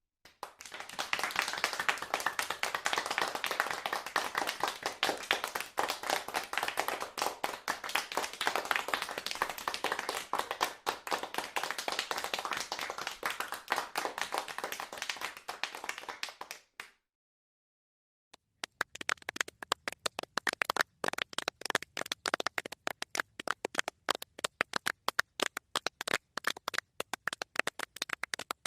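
Applause: dense clapping from a crowd that cuts off abruptly after about sixteen seconds. After a short silence, a smaller group claps, the individual claps distinct and sparser.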